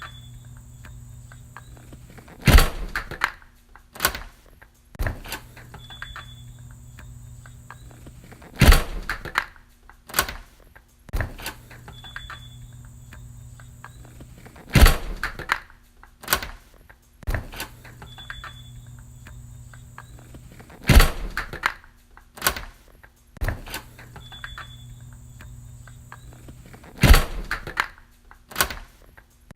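A door closing with a loud thunk, followed by a couple of smaller clicks of its lock. The sequence repeats about every six seconds, five times, each time starting with a short high beep, over a low steady hum.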